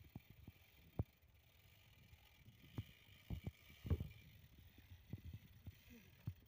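Faint, irregular low thumps and knocks, about a dozen spread unevenly, the loudest about a second in and about four seconds in, over a quiet hiss.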